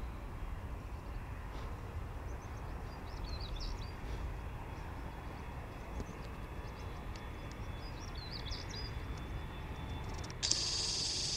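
Low, steady rumble of a Bombardier CRJ-1000's two rear-mounted jet engines as the regional jet rolls along the runway, with birds chirping a few times. Near the end a loud high hiss starts suddenly and cuts off about a second later.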